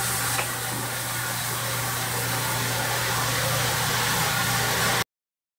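Single-disc rotary floor buffer running steadily with a low hum and hiss as its red pad spreads hardwax oil into a wood floor. The sound cuts out abruptly about five seconds in.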